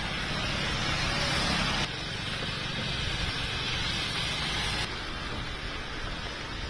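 Steady hiss of heavy rain with the low rumble of vehicles on a wet road, a bus among them. The sound shifts abruptly twice, about two and five seconds in.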